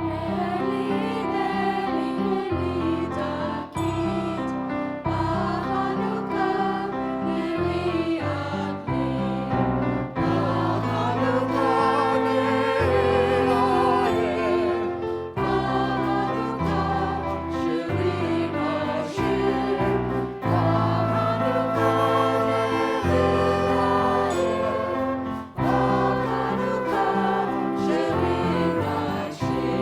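Group of voices singing a worship song over instrumental accompaniment, with sustained notes, wavering vibrato and a bass line that moves every second or two.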